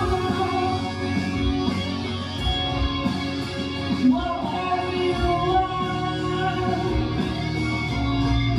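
A woman singing into a microphone over loud amplified backing music, with a rising sung phrase about four seconds in.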